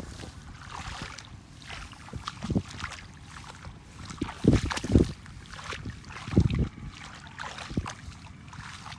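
Hands sloshing and squelching through shallow wet mud and grass, with irregular rustling and a few loud, low thuds about two and a half, four and a half, five and six and a half seconds in.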